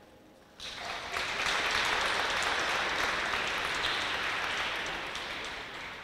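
Audience applauding, starting suddenly about half a second in and slowly dying away near the end.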